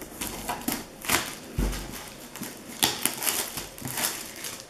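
Clear plastic shrink-wrap being torn and peeled off a small card-game box, crinkling and crackling in irregular bursts, with a soft knock of the box against the table about one and a half seconds in.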